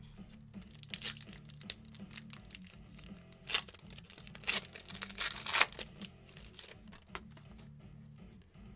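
Wrapper of a baseball card pack being torn open and crinkled by hand, in a series of short crackles that are loudest around the middle.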